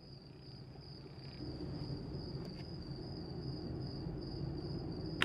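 Crickets chirring in a steady, high-pitched trill, over faint low background noise.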